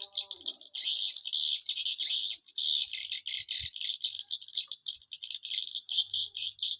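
Swiftlet calls: a dense, unbroken stream of rapid high chirps, many a second.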